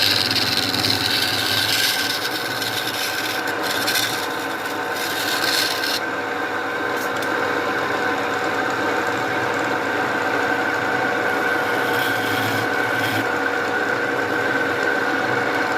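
Tool scraping and rasping on wood, continuous over a steady hum, with the sharper hiss dropping away about six seconds in.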